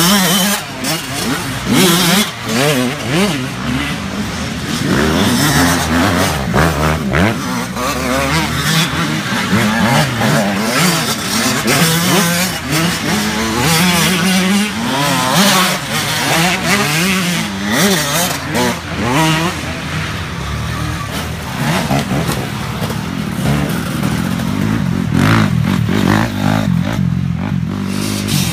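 Several youth mini dirt bikes racing past on a dirt trail, their engines revving hard, with the pitch climbing and dropping again and again as riders work the throttle and shift through the turns.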